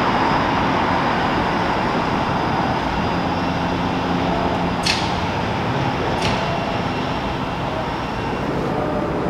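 Steady city street traffic noise as a Bombardier Flexity streetcar moves off along its tracks and cars drive past, with two short sharp clicks about five and six seconds in.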